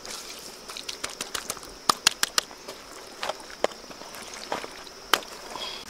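Hands working a fish on banana leaves: the leaves crackle and rustle, with sharp clicks, four in quick succession about two seconds in and another near the end. A steady high-pitched hum runs behind.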